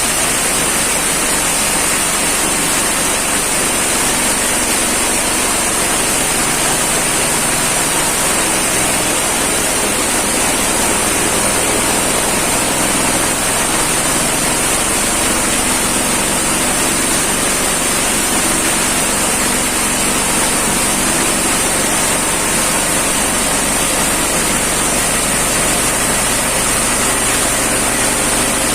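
Livestock-feed chopper machine running steadily: a loud, even mechanical noise with a low hum underneath.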